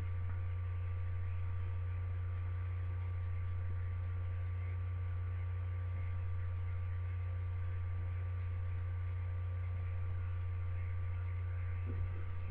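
Steady low electrical hum with a faint background hiss, unchanging throughout.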